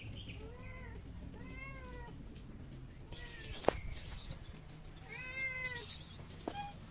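A cat meowing three times, each call rising and falling in pitch, the third louder and longer than the first two. A single sharp click comes about halfway through.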